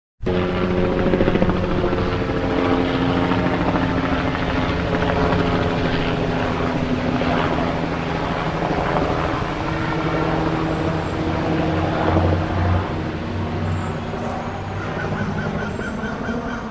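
Mil Mi-2 helicopter flying very low, its turbines and rotor giving a steady mix of engine tones and rotor noise, which swells briefly about twelve seconds in.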